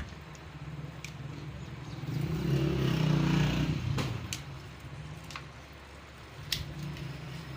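A motor vehicle engine swells for a couple of seconds and fades again over a steady low hum, with a few sharp clicks scattered through.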